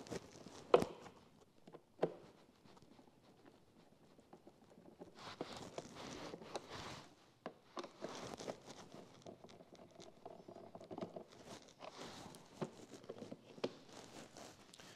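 Light clicks and scraping as screws are backed out of a plastic motorcycle airbox lid with a screwdriver, then rustling as the lid is worked loose and lifted off.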